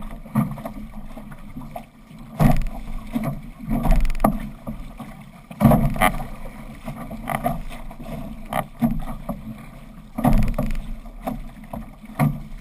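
Water rushing and splashing past a six-person outrigger canoe's hull and outrigger float as the crew paddles, with irregular louder splashes every second or two.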